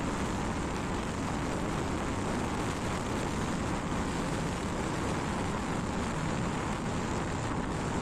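Steady driving noise of a vehicle on the move, an even rush of road and wind noise with no distinct engine note.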